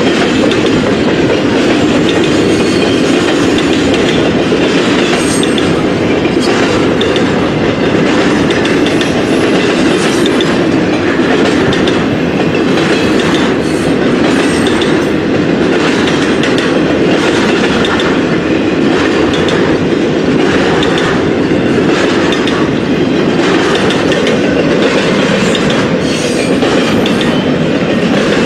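Train rolling past close by, its steel wheels clicking over the rail joints in a loud, steady rumble.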